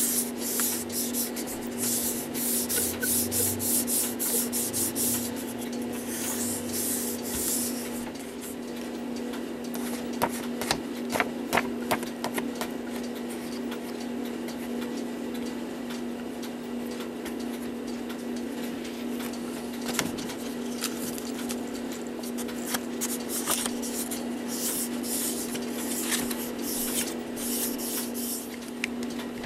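Quick hand strokes rubbing or sanding on a surface, in runs with pauses between them, over a steady low hum. A few sharp clicks come about a third of the way through.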